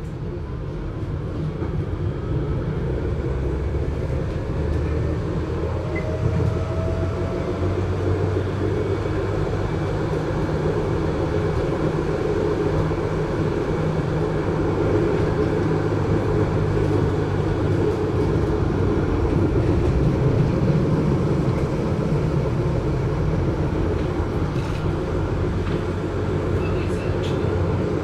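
GT6M low-floor articulated tram running, a muffled steady rumble and hum of its drive and wheels on rail that builds in loudness, with a faint rising whine in the first few seconds as it picks up speed.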